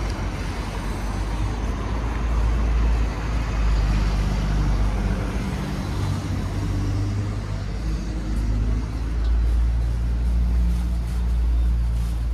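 City street traffic: buses and cars running close by, a steady low rumble with a wavering engine hum.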